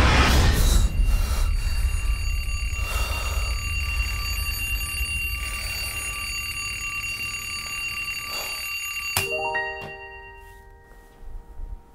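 A bell or alarm ringing in several steady, high metallic tones over a low rumble, pulsing slowly, cut off by a sharp click about nine seconds in; a few soft piano notes follow near the end.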